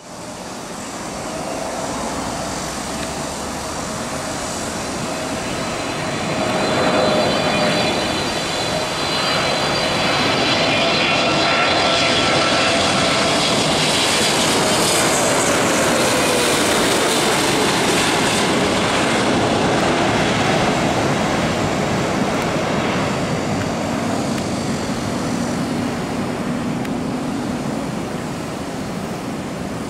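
Jet engines of an EVA Air Boeing 777-300ER on final approach, gear down, as it flies overhead. The roar grows over the first several seconds. Its engine whine slides down in pitch as the jet passes over, then the sound slowly fades.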